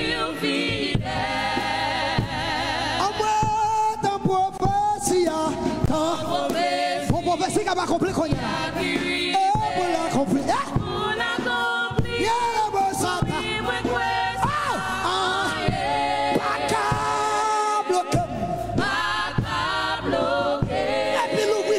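Gospel worship singing: worship leaders singing into microphones with the congregation joining in, several voices holding long, wavering notes without a break.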